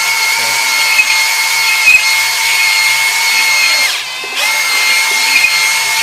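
Cordless drill motor running at a steady speed, spinning a cylinder hone in an engine bore; the whine winds down and stops for a moment about four seconds in, then starts again.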